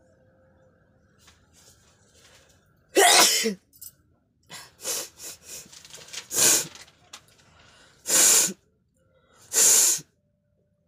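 A person sneezing again and again: four loud sneezes, the first about three seconds in and the last near the end, with quieter short bursts between them.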